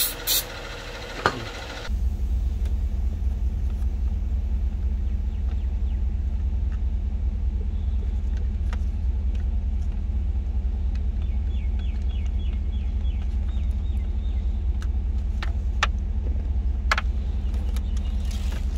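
A brief hiss of aerosol cleaner sprayed onto an electrical connector right at the start, then a steady low engine rumble of the GMC Denali idling, heard inside the cabin. A few sharp clicks and knocks near the end as the dashboard radio unit is handled.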